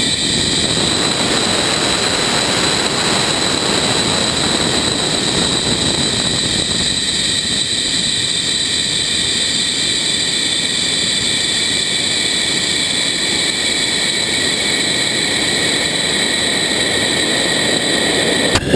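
Steady rushing roar of air streaming over a high-power rocket's airframe as it climbs, heard from an onboard camera, with a thin high whistle over it.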